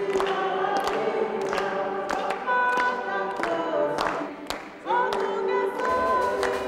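A congregation singing a hymn together, with held notes from many voices, and clapping along in a steady beat of about two to three claps a second.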